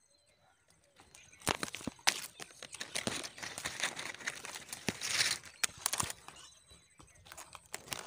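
Close rustling and crackling with sharp irregular clicks, starting about a second in: dry grass and leaves around the nest brushed close to the microphone.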